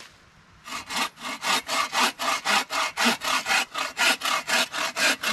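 Bow saw cutting through a dead log: quick, even back-and-forth rasping strokes, about four a second, starting just under a second in.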